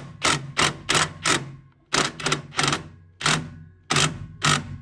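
Cordless impact driver tightening bolts on a metal backboard bracket, in short rattling bursts at an uneven two or three a second.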